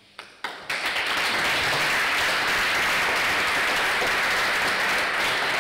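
Audience applauding: a couple of single claps, then full, steady applause from about a second in.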